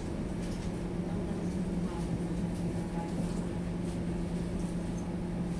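Steady hum and low rumble inside a streetcar standing still, its motor equipment idling with one even tone.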